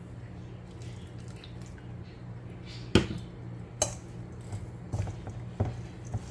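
Metal spoon tossing tabbouleh in a stainless steel mixing bowl, clinking against the bowl's side: a sharp clink about three seconds in, then several lighter ones, over a steady low hum.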